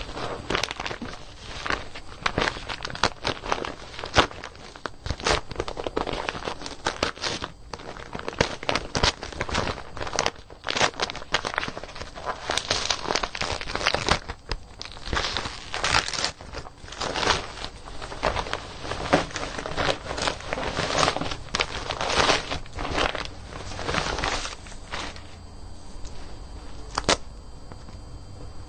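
Gift wrapping rustling and crinkling as it is untied and unwrapped by hand, in irregular crackles that thin out a few seconds before the end.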